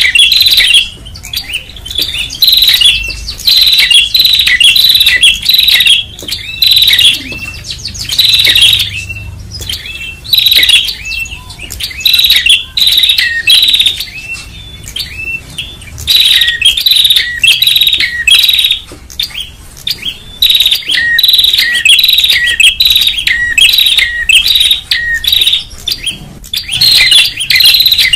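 Tailorbirds (prenjak) calling noisily: dense runs of loud, sharp, high chirps repeated in quick bursts every second or two.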